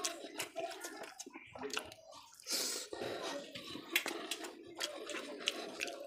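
Eating rice and curry by hand: wet chewing, lip smacks and squelching of rice being mixed with the fingers and pushed into the mouth, as a run of short clicks. A brief breathy hiss comes a little before halfway.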